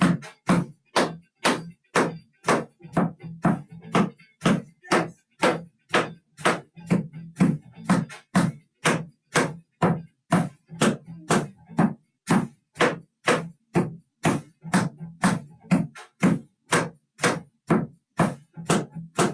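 Tap shoes' metal taps striking a plywood tap board in a steady, even rhythm of sharp taps, about two to three a second.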